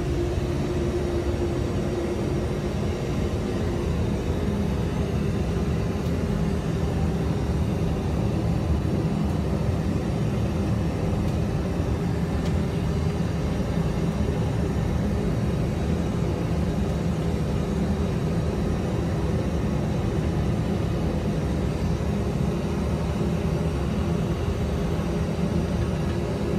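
Steady low rumble of a Boeing 777-200 full-motion flight simulator's cockpit, playing simulated aircraft noise on final approach.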